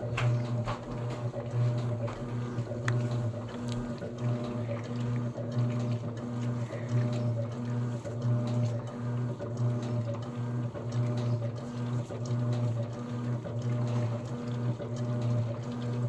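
Electrolux Essential Care 11 kg top-loading washing machine agitating a soapy load: a steady low motor hum with water sloshing and small clicks.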